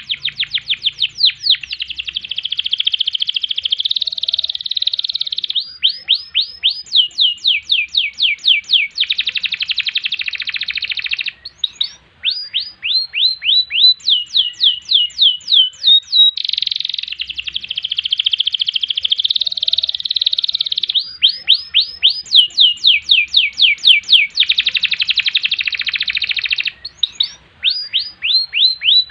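Domestic canary singing a long, continuous song. Fast, dense trilled rolls alternate with runs of sharp, steeply falling whistled notes at about five a second.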